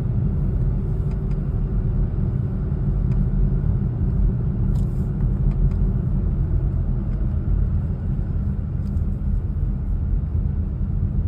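Steady road and engine rumble inside a moving Volvo's cabin, with a few faint, irregular clicks and knocks from the dashboard.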